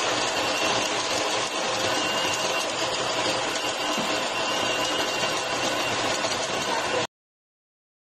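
Electric coffee grinder running, grinding beans into a metal dosing cup with a steady mechanical whir. The sound cuts off suddenly about seven seconds in.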